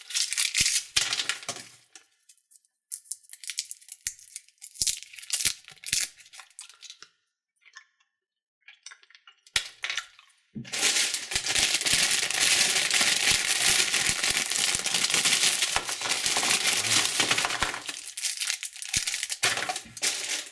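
Crinkling and rustling of plastic candy wrappers and packets being handled. It comes first as scattered crackles, then, after a short pause, as a long continuous crinkle of about seven seconds.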